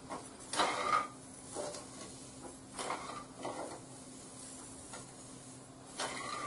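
Long steel ladle stirring sugar and water in an iron kadhai for sugar syrup, scraping against the pan a few times, over a faint steady hum.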